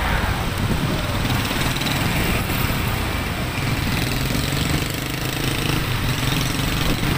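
Motorcycle engine running steadily at low speed, with road and traffic noise.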